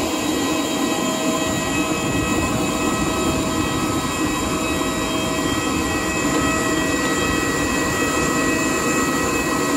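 Jet aircraft turbines whining on an airport apron: a loud, steady rush with several high whining tones held throughout.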